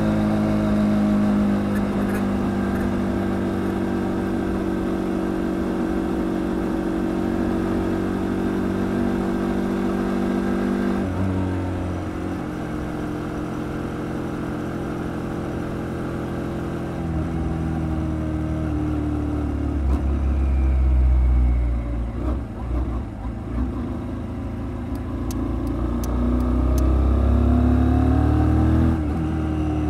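Kymco Quannon 125 motorcycle engine running while riding along, heard with a low rumble underneath. The engine note holds steady, drops and settles lower about eleven seconds in, then rises again in a few glides near the end as the bike accelerates.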